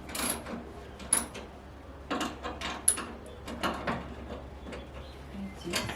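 A string of short, light clicks and knocks from hard objects being handled, scattered irregularly over a steady low hum.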